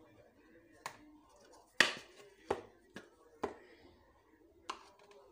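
Plastic measuring cups tapping and knocking against the rims of a plastic jar and bowl while flour is scooped and tipped: about six sharp taps at uneven intervals, the loudest about two seconds in.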